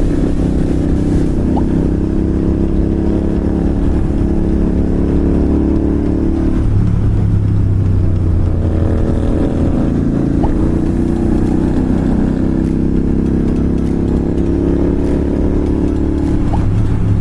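Royal Enfield Continental GT 650's parallel-twin engine, fitted with a slip-on exhaust, running steadily under way, with the engine note shifting about seven seconds in and again near the end.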